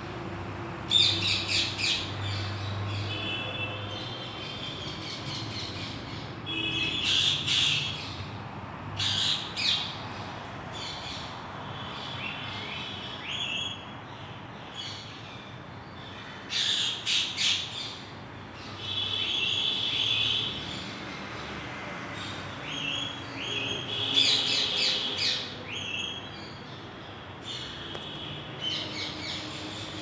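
Indian ringneck parakeet and a pet parrot calling back and forth, in short bursts of shrill screeches and trills every few seconds.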